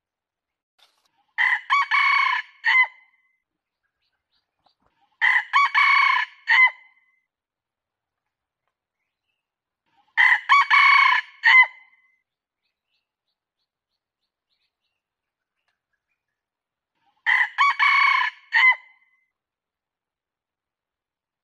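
Red junglefowl rooster crowing four times, a few seconds apart. Each crow is short and broken into several clipped notes. It is played as a hunter's lure call (pikatan) to draw in wild junglefowl.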